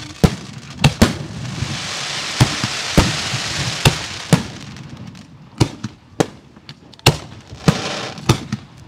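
Professional display fireworks: aerial shells bursting in a rapid, irregular series of about a dozen sharp booms. A steady hiss fills the gaps in the first half.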